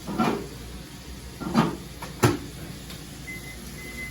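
Kitchen clatter: three sharp knocks, the middle ones close together, as of a cupboard door or lid being opened and shut while food is fetched. A faint high beeping starts near the end.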